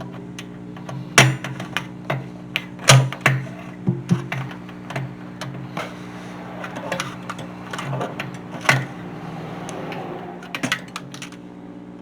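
Irregular metallic clicks and knocks of hand tools and wrenches working on an air compressor's cylinder base, over a steady low hum.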